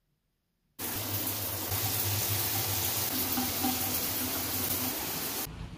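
Water running steadily, starting abruptly about a second in and cutting off sharply near the end.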